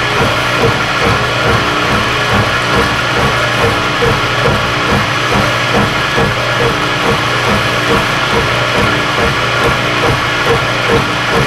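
Vertical milling machine running under load, its cutter taking a heavy quarter-inch-deep cut in metal as the table is fed. A steady machine hum carries a regular pulsing a few times a second.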